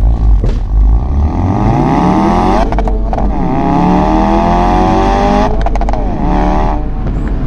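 Ford Focus RS Mk3's 2.3-litre turbocharged four-cylinder accelerating at full throttle, rising in pitch through three pulls. The two gear changes, about 3 and 6 seconds in, are made without lifting off the throttle (flat-shift), each marked by a brief burst of crackling from the ignition cut.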